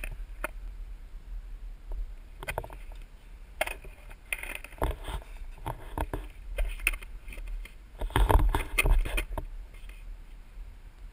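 Freestyle skateboard tricks on concrete: the board knocking and clattering as it is flipped, stepped on and set down, a scattering of irregular clacks with the busiest, loudest run about eight to nine seconds in, over a low steady rumble.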